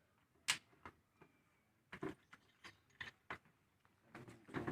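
Faint, scattered clicks and knocks, a few in a row, the sharpest about half a second in, with voices starting near the end.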